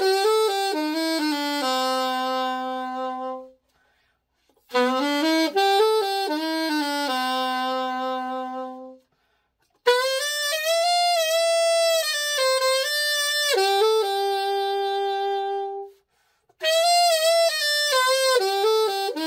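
King Cleveland 613 alto saxophone played solo in short phrases that mostly step down to a long held low note, with pauses of about a second between them. It is being play-tested after a full overhaul.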